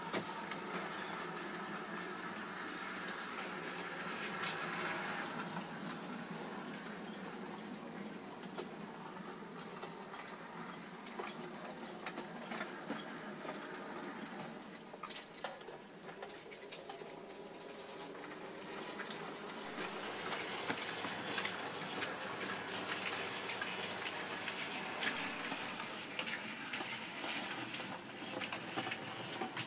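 A model steam locomotive, a Bachmann Ivatt 4MT in OO gauge, running along layout track with a goods wagon: a steady rushing, hiss-like running noise with scattered sharp clicks from the wheels on the rails.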